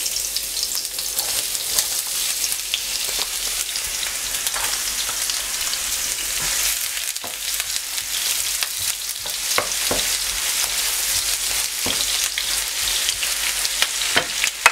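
Diced onions sizzling steadily in hot coconut oil and caramelised sugar in a frying pan, stirred with a wooden spatula that knocks and scrapes against the pan now and then.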